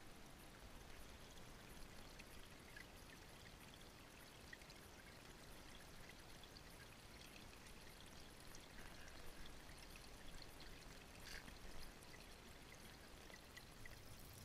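Creek water flowing through a gold sluice box, faint and steady, with a few light ticks.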